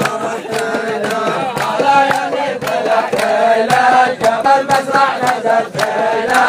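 A group of men chanting and singing together for a dance, over a steady beat of sharp rhythmic hits.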